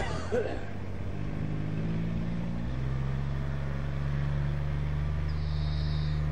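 An engine running steadily with a low hum, its tone shifting slightly a little under halfway through, after a short sharp sound at the very start.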